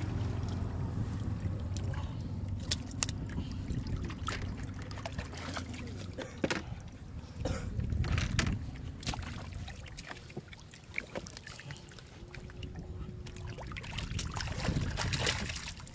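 Catfish thrashing and muddy water splashing inside a flooded wooden boat as hands grope for the fish. Scattered sharp splashes and knocks are heard, over a low steady rumble in the first few seconds.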